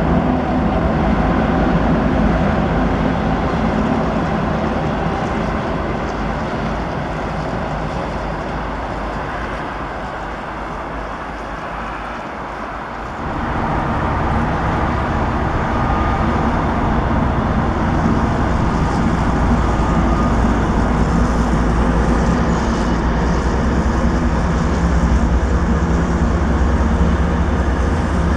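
Diesel locomotive running steadily, with a low engine drone. It fades gradually over the first dozen seconds, then comes back louder with an abrupt jump about 13 seconds in.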